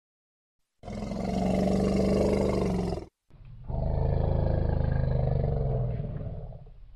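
Elephant calls: two long, low roars, the first starting about a second in and lasting about two seconds, the second following right after and lasting about three and a half seconds before fading out.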